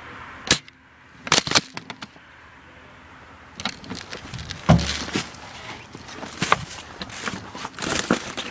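Footsteps crunching through snow and brush, an irregular run of crackling steps that starts about three and a half seconds in. Before that come a single sharp knock about half a second in and a quick cluster of clicks about a second later.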